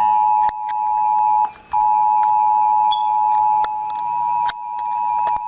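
Emergency Alert System attention signal: the harsh, steady two-tone alarm sounding continuously, with one short break about a second and a half in. It is the tone that announces an incoming emergency alert message.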